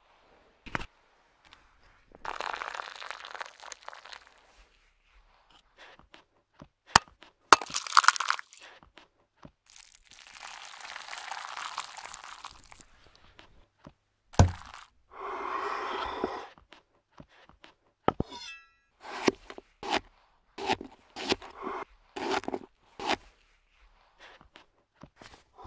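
A run of stop-motion cooking sound effects: a pour, sharp cracks, whisking in a glass bowl, then a quick series of knife chops on a wooden board, about two a second.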